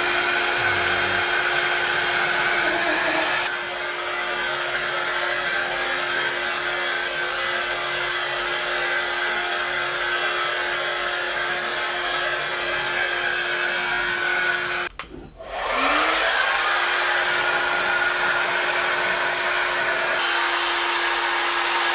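Feeka anion hair dryer running: steady airflow noise with a steady motor hum. It drops a little in level a few seconds in, stops for about a second about two-thirds through, then starts again with a short rising whine as the motor spins up.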